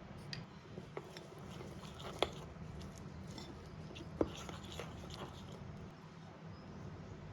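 Small handling noises: scattered light clicks with two sharper knocks about two seconds apart, over a steady low hum.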